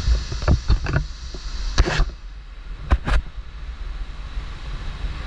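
Steady rush of a large waterfall pouring into its plunge pool, with low wind buffeting on the microphone in the spray. Several sharp knocks land in the first three seconds.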